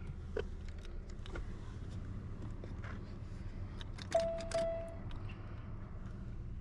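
Light clicks and small rattles, then a single steady electronic beep lasting just under a second about four seconds in, over a low steady hum.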